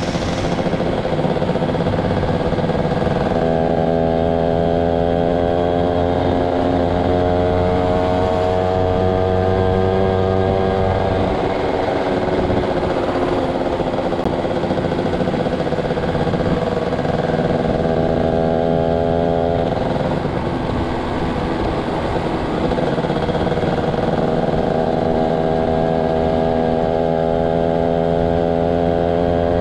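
Yamaha SS motorcycle engine running under way. Its pitch climbs steadily as the bike accelerates, drops about a third of the way in, climbs again, and dips briefly about two-thirds of the way through before rising once more.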